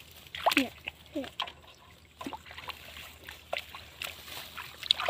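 Water splashing and sloshing in short, irregular strokes, with two short downward-sliding cries, the loudest sounds, about half a second and a second and a quarter in.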